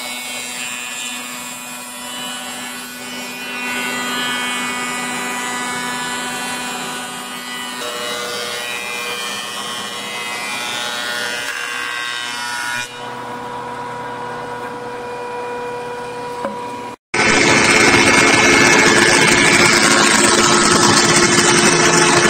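MB9020A wood moulder/planer running, its cutters machining boards fed through by rubber feed rollers: a steady whine over the noise of wood being cut. The sound changes abruptly several times where clips are joined, and is louder over the last quarter.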